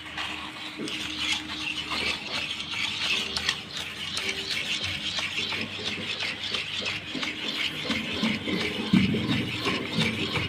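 JCB 3DX backhoe loader working in mud: a steady engine hum under dense scraping and crackling, with a heavier low rumble coming in near the end.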